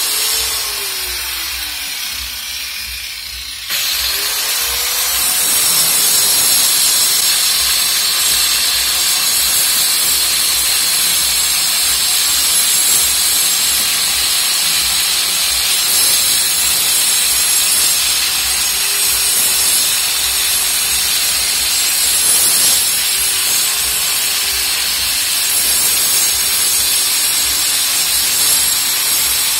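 Angle grinder cutting a groove into a brick wall to chase in a water pipe. At first the motor winds down, its pitch falling. About four seconds in it starts again and grinds steadily through the brick, its pitch dipping now and then under load.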